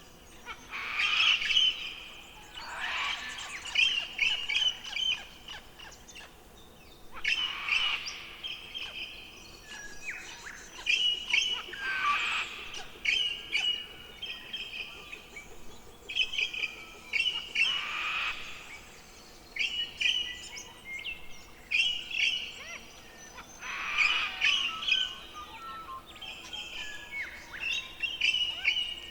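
Birds calling: quick chirping phrases repeated every couple of seconds, mixed with louder harsh, rasping calls every few seconds.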